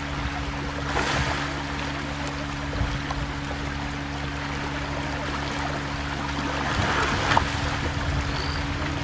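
Water splashing and churning as a crocodile thrashes a zebra carcass in the shallows, with stronger splashes about a second in and again near the end. A steady low hum runs underneath.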